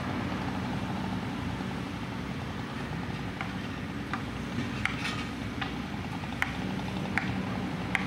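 Sumitomo SH240 log loader's diesel engine running steadily under hydraulic load, with several sharp knocks and clacks through the second half as the grapple sets a bundle of logs onto the logging truck between its stakes.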